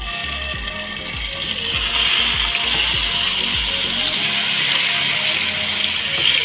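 Marinated boneless chicken sizzling in hot oil in a non-stick frying pan as it is tipped in, the sizzle growing louder about two seconds in as more of it hits the pan.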